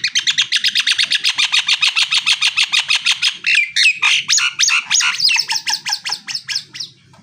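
A jalak Nias (a starling kept as a songbird) singing a rapid-fire string of sharp repeated notes, about nine a second. Wider sweeping whistled notes come in around the middle before the string fades out near the end.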